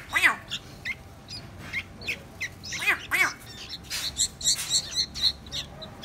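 Bulbul chicks giving begging calls as they are hand-fed with tweezers. Harsh squawks that rise and fall in pitch come loudest just after the start and twice about three seconds in, with quick high chirps in between.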